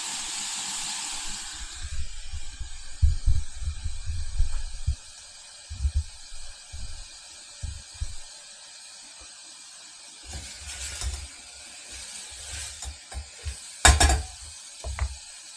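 Gyros meat frying in hot oil in a Dutch oven: a sizzling hiss that stops after about a second and a half. Then irregular low bumps and knocks, with one sharp clatter near the end.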